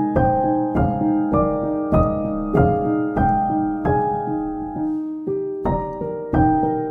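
Background music: a slow, gentle melody of struck notes left to ring and fade, a new note about every half second, over a steady low held tone.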